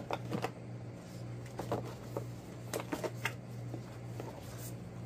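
Hands handling a stack of cards and booklets in a white cardboard box insert: scattered light taps and paper rustles, over a steady low hum.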